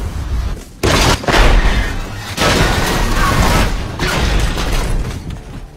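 Action-film soundtrack of a race-car crash: a sudden loud crash about a second in, then a dense run of booming and crashing under film score music.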